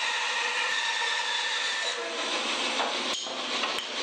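Bandsaw running steadily while its blade cuts the waste off a glued-up wooden block; the sound changes about halfway through, and two sharp wooden knocks come near the end as the board is pulled clear of the table.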